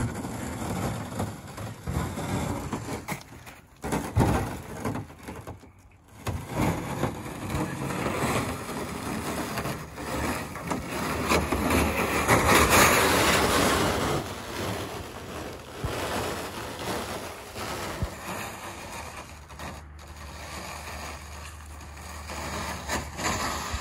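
Crunching and scraping of a plastic kayak hull being dragged and pushed over snow and ice, mixed with footsteps in snow. The noise is irregular and loudest about halfway through, with two brief breaks.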